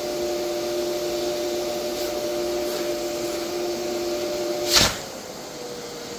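Vacuum cleaner motor running steadily with its nozzle in a bag of oak sawdust, drawing the air out to compact the bag. Near the end comes one short, loud burst, after which the motor runs quieter and its hum settles a little lower.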